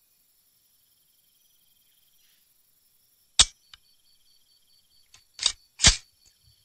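Faint high chirping like crickets, broken by short sharp hits: one about halfway through with a softer tick just after, then two loud ones close together near the end.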